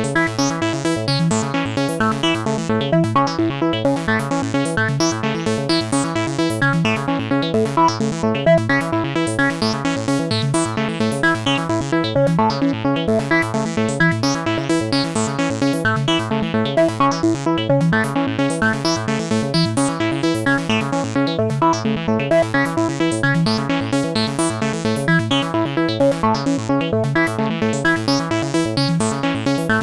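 Synthesized electronic ringtone tune from the Sytrus synth in FL Studio: fast, evenly repeating notes over a steady pulse, looping without a break.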